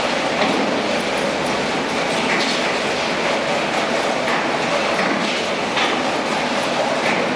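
Industrial waste shredder and wheel loader working: a steady dense mechanical din with irregular sharp clanks and cracks standing out about once a second.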